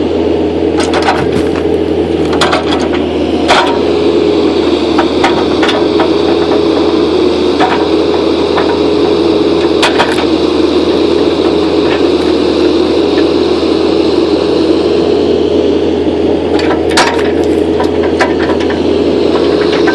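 Kubota U45-3SS mini excavator's diesel engine and hydraulics running steadily with a constant hum and drone, while sharp knocks and cracks come at irregular moments, a cluster of them near the end, as the machine works.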